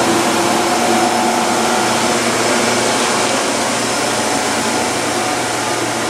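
Amtrak Amfleet passenger cars rolling past close by: a steady rush of steel wheels on rail with a faint hum.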